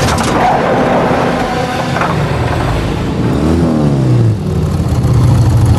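Vehicle engines running: a car driving, then a motorcycle engine revs up and back down about three and a half seconds in and settles into a low, steady throb.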